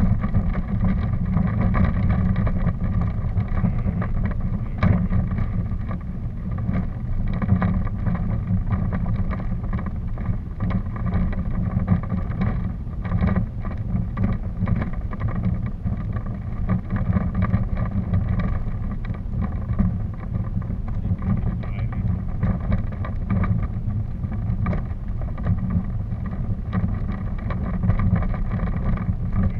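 Steady low rumble with a faint hum above it and scattered small clicks and rattles: the vibration and wind noise of a camera moving along a dirt forest path.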